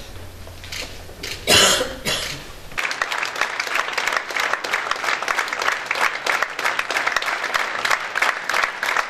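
Theatre audience applauding at a curtain call: dense, steady clapping that starts about three seconds in. Before it, a single short loud sound about one and a half seconds in.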